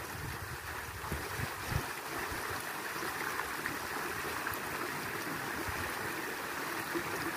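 Small creek flowing, a steady rush of running water.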